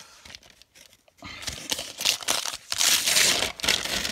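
Brown kraft paper packing crinkling and rustling in irregular bursts as it is pulled open by hand, starting about a second in.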